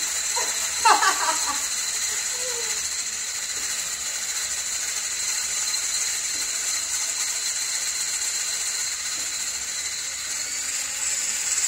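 Electric hand whisk beating eggs and sugar in a glass bowl, its motor running steadily with a high whine, whipping the mixture until it turns paler. A short burst of a voice about a second in.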